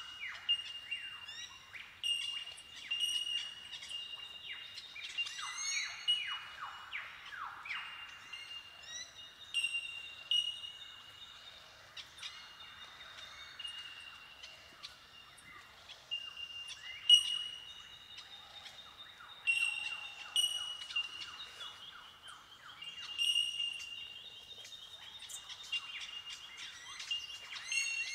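Bell Miners (bellbirds) calling in a colony: many ringing, bell-like 'tink' notes overlapping into a continuous windchime-like chorus, with quick falling notes mixed through it.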